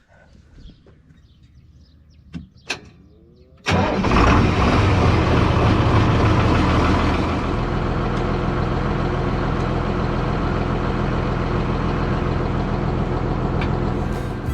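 Farm tractor engine starting with a sudden catch a few seconds in, running loudest for a few seconds and then settling to a steady idle.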